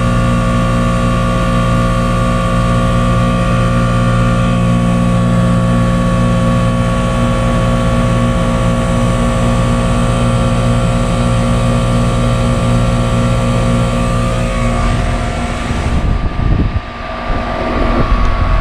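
Goodman central air conditioner outdoor unit running, a steady compressor and condenser-fan hum with several constant tones. Near the end, the unit's hot discharge air blows on the microphone in gusts.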